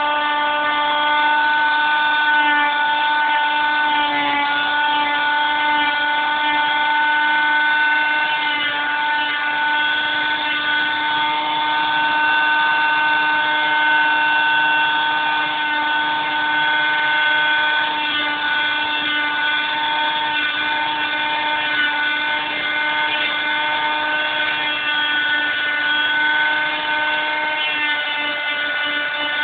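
Electric power grinder whining steadily as it grinds the edges and knots of a dried tree-limb walking stick, its pitch dipping slightly now and then under load.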